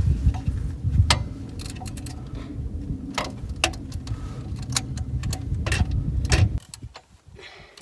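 Metal hand tools clicking and clinking against a bolt, a handful of sharp separate clicks, over a loud uneven low rumble that cuts off suddenly near the end.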